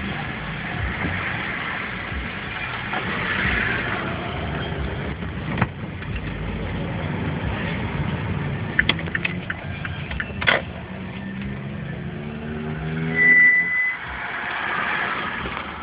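Street traffic with car engines running, heard from inside a car. About eleven seconds in, an engine's pitch rises as a vehicle accelerates, and a short high steady beep follows, the loudest sound. A few sharp clicks come a little before the acceleration.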